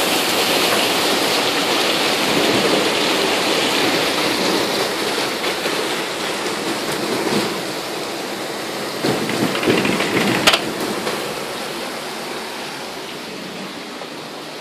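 Heavy rain pouring down in a steady rush. A few bumps come around nine to ten seconds in, ending in one sharp knock, the loudest sound. The rain grows quieter near the end.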